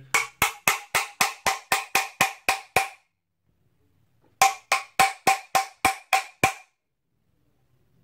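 Rapid metallic tapping on a vacuum cleaner motor's metal cover, about four taps a second in two runs, each tap ringing with a clear tone. The cover is seized and is being knocked with a tool to free it.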